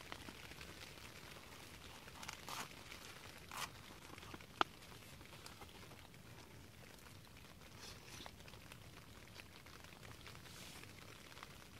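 Quiet eating sounds: a spoon scraping and crinkling in a foil ration pouch, with a few faint rustles and one sharp tick, over a soft steady patter of light rain on the tent.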